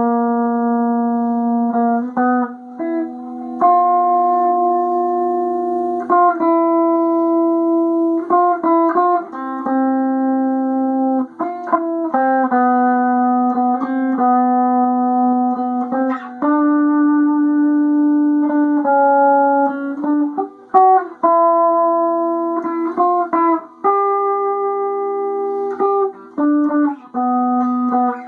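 Guitar, most likely electric, playing a slow line of held notes and chords. Each note sustains evenly with little fade for a second or two before the next takes over, with short breaks between phrases.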